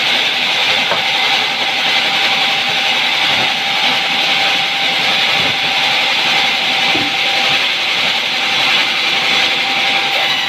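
Large stationary band saw of a sawmill running steadily as a wooden board is fed through the blade, a continuous loud hiss with a faint steady whine.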